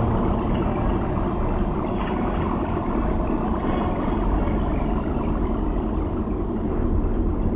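Dark ambient horror soundscape: a steady, dense rumble with no clear pitch, right after ringing gong-like tones stop.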